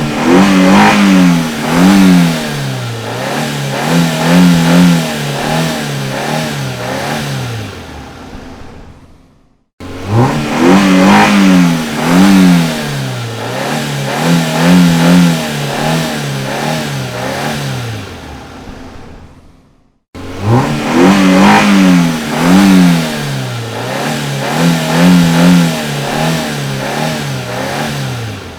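Car engine revving, the same recording heard three times over. Each time it starts abruptly, is blipped up and down several times, then drops back and fades out over about ten seconds.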